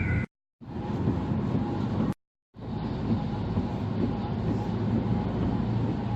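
A car driving on a motorway: steady road and engine rumble, cut by two brief total silences about half a second and two seconds in.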